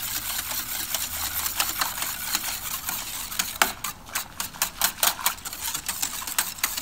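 A metal utensil stirring a thin liquid briskly in a stainless steel pot, dissolving peanut butter, soy sauce and brown sugar in water for peanut sauce. It starts as a fast, dense scraping and clinking against the pot. About halfway it becomes separate clinks, roughly three a second.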